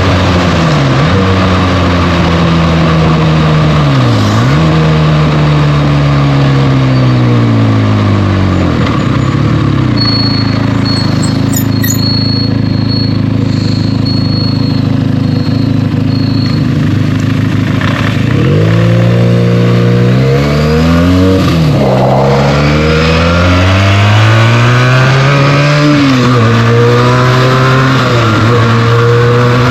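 2025 Benelli TNT 300's stock-exhaust twin-cylinder engine under way. It pulls up through the gears, its pitch climbing and then dropping sharply at each upshift, settles lower and steadier for several seconds midway, then is blipped a few times and accelerates again. A high, intermittent beeping is heard in the middle.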